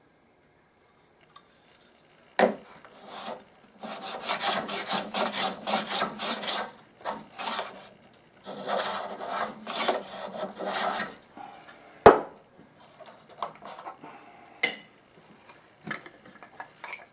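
Small metal block plane set to a light cut, taking thin shavings off a wooden wedge in quick scraping strokes, in two runs of a few seconds each with lighter strokes near the end. A click comes early on, and a sharp knock, the loudest sound, falls between the runs and the lighter strokes.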